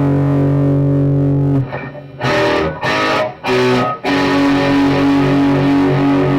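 Electric guitar fitted with Fleor Alnico 5 two-wire humbuckers, played through an amplified or DI signal chain: a held chord cuts off about a second and a half in, three short chord stabs follow, then a new chord rings out and is held.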